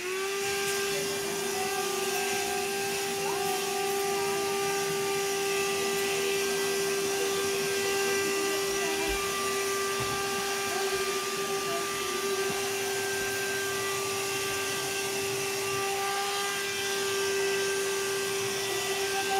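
Vacuum cleaner running steadily at a constant pitch, its motor just up to speed.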